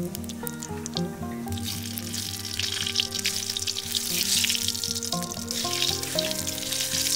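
Cumin seeds and dry red chillies sizzling and crackling in hot mustard oil in an aluminium kadai as they are stirred, the sizzle loudest midway. Background music plays under it.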